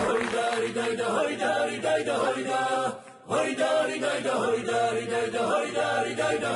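Unaccompanied choir singing in several parts over a held low drone note, with a short break about three seconds in before the voices resume.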